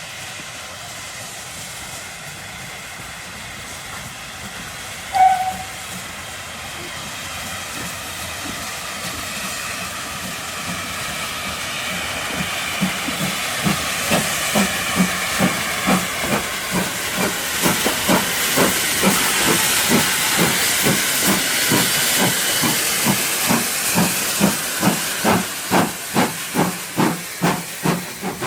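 Steam locomotive No.9351, a GWR-style 2-6-0, hissing steam, with a short, loud whistle about five seconds in. From about twelve seconds in its exhaust beats start and grow louder and quicker as it gets the train moving.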